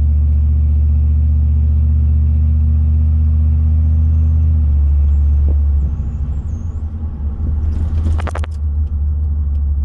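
Dodge truck with a freshly rebuilt 46RE automatic transmission driving, its engine and drivetrain making a steady low drone. About five seconds in the drone changes and turns rougher and quieter. A quick run of sharp clicks comes about eight seconds in.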